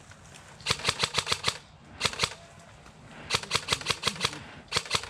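Airsoft rifle firing in four quick strings of sharp shots, the longer strings about eight shots a second.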